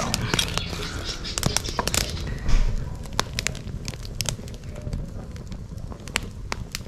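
Wood fire of Oregon timber and hardwood crackling, with frequent sharp pops and snaps, busiest in the first couple of seconds, and a dull thump about two and a half seconds in.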